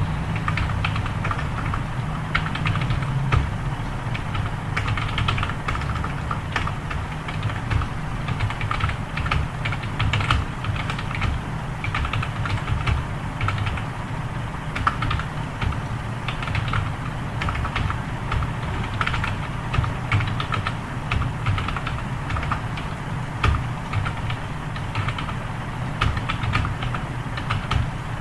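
Rapid, irregular clicking of computer keyboard keys during continuous touch typing, over a steady low hum.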